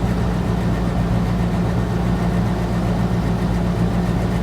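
Steady low mechanical hum of several fixed low tones, even and unchanging throughout.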